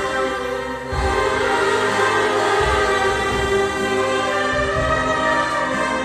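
Church orchestra and choir performing a hymn together, with sustained chords under the singing voices.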